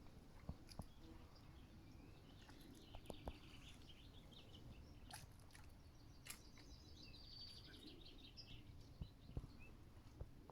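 Faint songbirds chirping, with a rapid pulsed trill from about seven to eight seconds in, over a low steady outdoor rumble. A few sharp clicks or ticks stand out at scattered moments.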